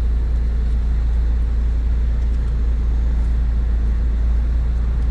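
Audi Q5 engine idling with a steady low rumble.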